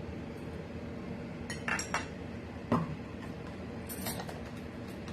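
A metal spoon clinking and knocking against a dish a few times, beginning about a second and a half in, while vanilla essence goes into the cake batter.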